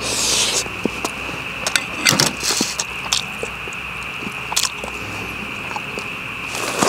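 Spoon and tableware clicking and scraping during a meal: scattered sharp clicks with a few short scraping noises, over a steady high-pitched hum.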